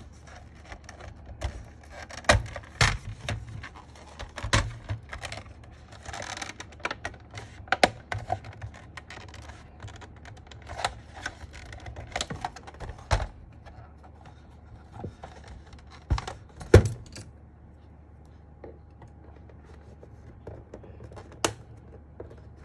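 Irregular plastic clicks and knocks as the two-piece case of a Sky87 mechanical keyboard is pried apart by hand, with a short scraping sound about six seconds in.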